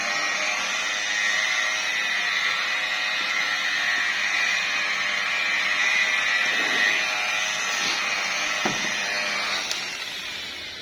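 Electric car polisher running with a steady whine, then switched off and spinning down near the end.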